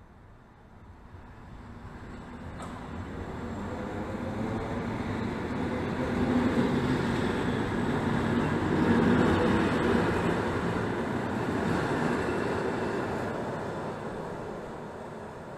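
PolReggio-modernised EN57 electric multiple unit pulling out and accelerating past, its motors and wheels on the rails growing louder to a peak about nine seconds in, then fading as it draws away.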